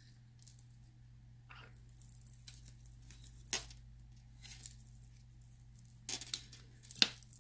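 Light handling sounds of nail stamping: gold polish brushed onto a metal stamping plate and a plastic scraper card drawn across it, with scattered small clicks and taps. The sharpest clicks come about halfway through and near the end.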